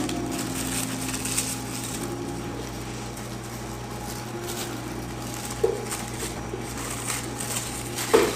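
Thin plastic film crinkling and rustling as it is pulled and stretched over the tops of plastic cups, over a steady low hum. There is a light knock about five and a half seconds in and another near the end.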